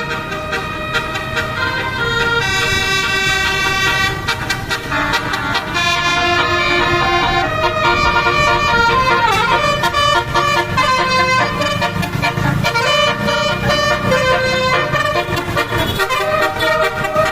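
Indonesian tour bus's multi-tone "telolet" air horn playing a melody, its notes changing in quick succession, over the low rumble of the bus's engine.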